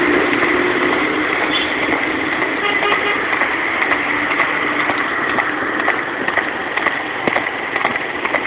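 Steady vehicle and road noise, with the horse's shod hooves clip-clopping on the asphalt; the hoofbeats come through more clearly from about halfway in, a couple of strikes a second.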